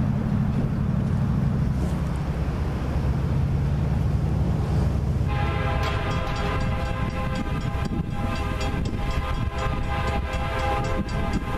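An approaching Union Pacific SD70M diesel locomotive's air horn sounding a chord of several notes from about five seconds in, in a long blast with a few brief breaks. Under it is the low, steady rumble of the oncoming train.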